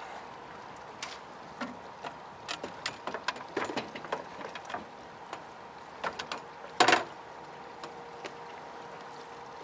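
Scattered knocks and rattles of a landing net and fishing gear against a boat's deck as a netted fish is handled, with one loud clattering bang about seven seconds in.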